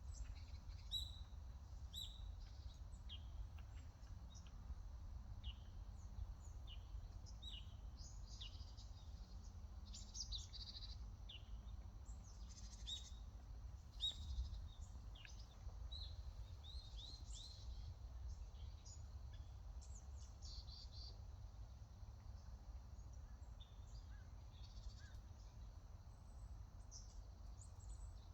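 Wild songbirds chirping and calling, with many short high notes that come thickest through the middle, over a steady low rumble.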